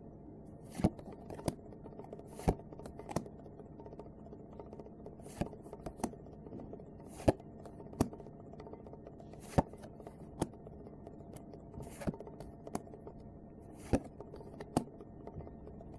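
Trading cards from a Kaijudo starter deck being handled one at a time: a short, sharp click or snap about once a second as each card is laid down or flipped over, over a faint steady hum.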